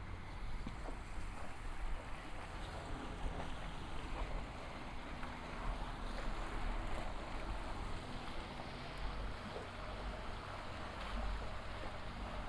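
Steady outdoor ambience with a fluctuating low rumble and a hiss, and faint scattered ticks.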